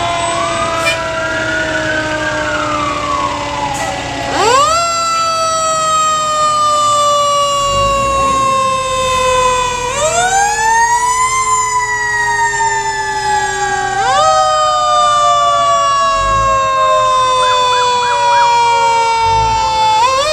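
Several fire-truck sirens wailing at once and overlapping. Their pitches slide slowly down, then jump back up every several seconds.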